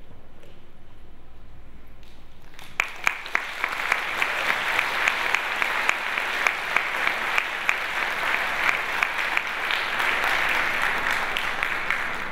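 Audience applause in a concert hall: after almost three seconds of quiet, a few separate sharp claps break out and quickly build into steady, full clapping.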